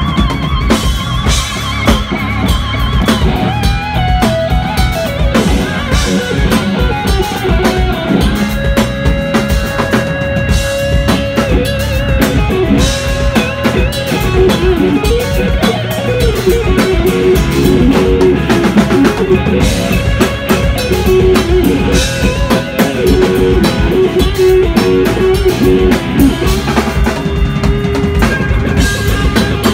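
Live rock band playing, led by an electric guitar solo over drums and bass. The guitar trills fast at first, then holds long bent notes with wide vibrato.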